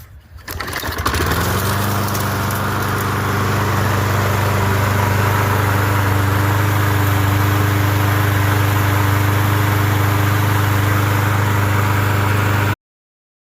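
Toro walk-behind lawn mower's small engine catching on a cold start about half a second in, then running at a steady speed. The sound cuts off suddenly near the end.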